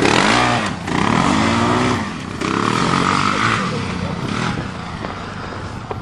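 Quad bike engine revving up and down in several swells, each rise and fall lasting about a second, dying away in the second half.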